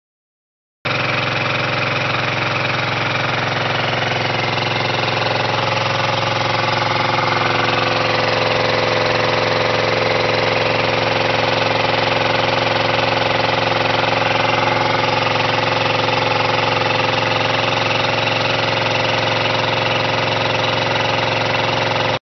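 Kubota Z482 two-cylinder diesel engine running at a steady speed. The sound cuts in abruptly about a second in, with the engine already running.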